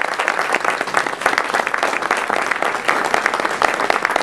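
Audience applause: many people clapping steadily and densely after a short speech of thanks.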